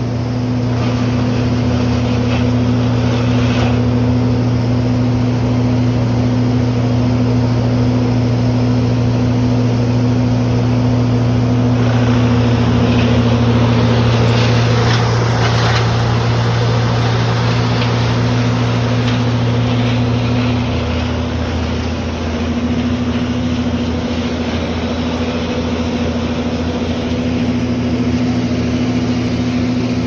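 Wood chipper's engine running steadily with a low, even drone; the tone of the drone shifts about two-thirds of the way through.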